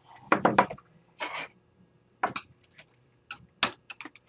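Workbench handling noises: a small bench vise is lifted and set down on the bench, with a handful of short clunks, clicks and brief scrapes, the loudest about half a second in and a quick run of clicks near the end.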